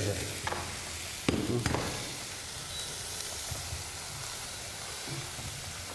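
Food frying in hot oil in a pan, sizzling steadily, with two sharp clicks between one and two seconds in.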